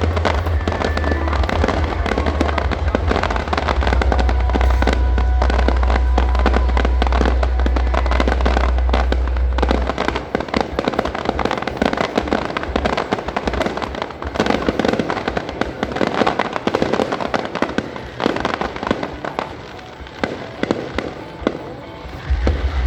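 Fireworks display: a dense, rapid run of bangs and crackles, over a heavy low rumble for the first ten seconds. The bangs thin out and get quieter in the last few seconds.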